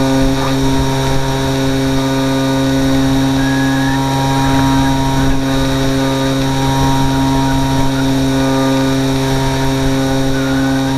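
ParkZone Radian electric RC glider's brushless motor and propeller running at a steady speed, a constant hum with an even whine, heard from a camera on the plane itself with wind buffeting the microphone.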